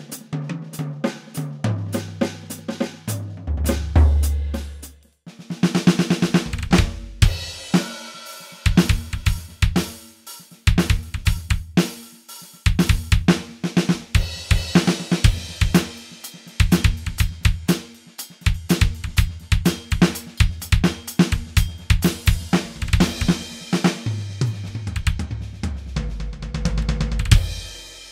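ATV aDrums Artist electronic drum kit played through its sound module, with snare, bass drum, toms, hi-hat and cymbals. A short break about five seconds in marks a switch from the 'Be-Bop '64' preset kit to the 'Dry Oxnard' kit. Low tom fills come at the start and again near the end.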